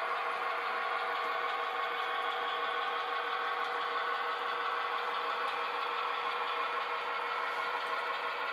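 Model railway locomotives running steadily over the track: small electric motors whirring and wheels rattling on the rails.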